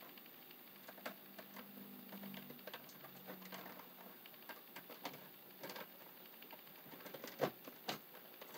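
Faint, scattered clicks and taps of electrical wires being handled and pushed into a blue plastic electrical box, with two sharper clicks near the end.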